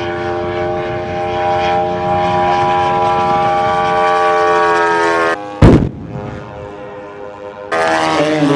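450 cc engine of a giant-scale radio-controlled P-47 running steadily in flight, its pitch sinking slowly. The engine sound cuts off abruptly a little past five seconds in and a single loud bang follows. The engine sound comes back abruptly near the end, its pitch wavering.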